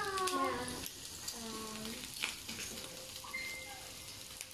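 Food sizzling on a griddle pan over a portable gas stove, a steady hiss, with quiet voices in the first two seconds.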